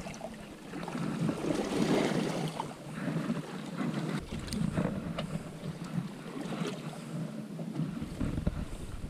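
Wind on the microphone and waves slapping against the stern of a small boat on open sea, with a few light knocks.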